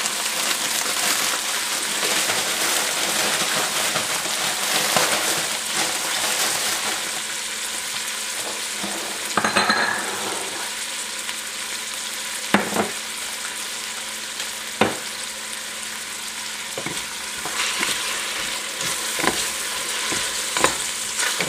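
Beef strips and onions sizzling steadily as they brown in oil in a stainless steel pot over medium heat. A wooden spatula stirs them, with a handful of sharp knocks and scrapes against the pot in the second half.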